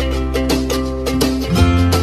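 Background music led by a plucked string instrument like a ukulele or guitar, with a bass line that changes note near the end.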